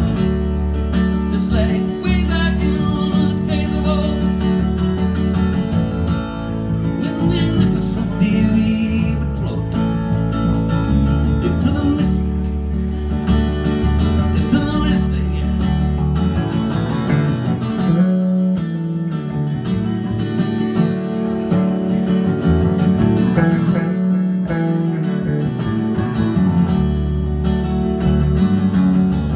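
Live acoustic-guitar and electric-bass duo playing a song: strummed acoustic guitar over steady bass notes, with a man singing at times.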